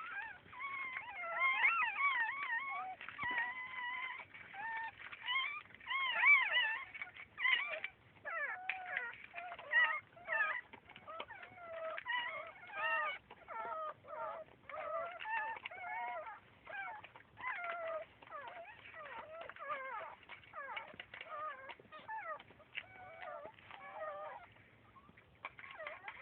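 Baby animals crying for their absent mother: a steady stream of high, wavering whimpering calls, louder in the first few seconds and then somewhat softer.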